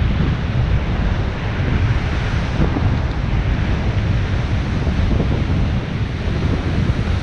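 Wind buffeting the action camera's microphone as the bike rides at about 12 km/h along the water's edge, a steady low rumble, with small surf waves washing in alongside.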